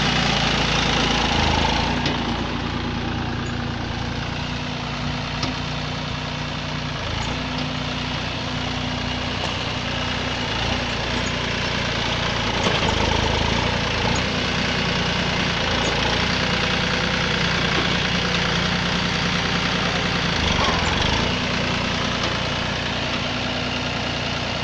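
Massey Ferguson 9500 Smart tractor's diesel engine running steadily near idle, its pitch shifting slightly a few times.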